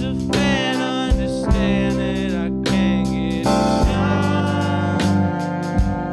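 Tenor saxophone soloing in bending, sliding phrases over a live band's bass guitar, keys and drums.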